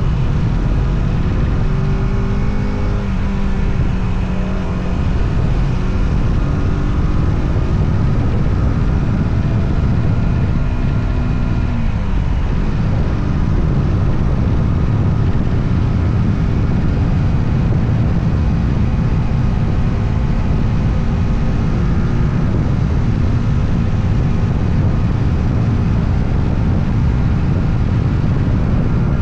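Motorcycle engine running under way on a mountain road, its pitch rising and falling with throttle and gear changes.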